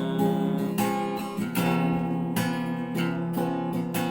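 Acoustic guitar strumming chords in an instrumental break between sung lines.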